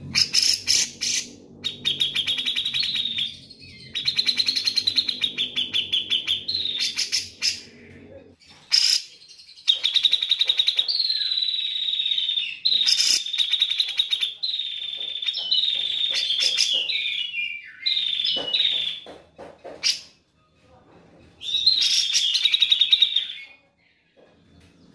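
Grey-cheeked bulbul (cucak jenggot) singing: loud bouts of rapid, chattering trills a few seconds long, broken by short pauses.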